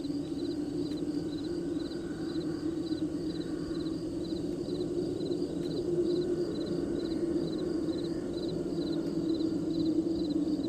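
Field crickets chirping in an even rhythm, a couple of short pulsed chirps a second, over a steady low hum.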